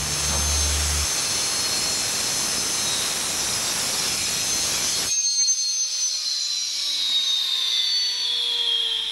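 Cut-off saw cutting through a concrete lintel, a loud steady grinding hiss that stops suddenly about five seconds in; the blade then spins down freely with a whine that falls slowly in pitch.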